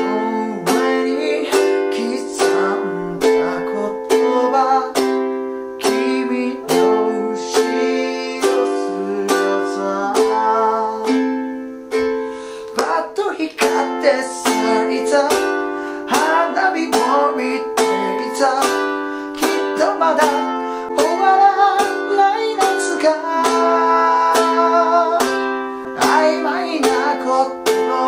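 G-Labo thin-bodied Gazz-model ukulele strummed in a steady rhythm through a simple F, G7, Am, C and Em7 chord progression, with a man singing the melody along, his voice plainer in the second half.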